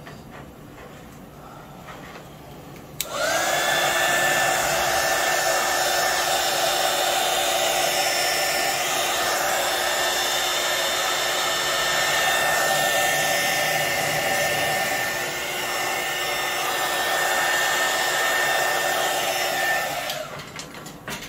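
Small craft heat gun switching on about three seconds in, its pitch rising as the fan spins up, then blowing with a steady whine until it switches off near the end. It is being passed over freshly poured resin to chase out bubbles.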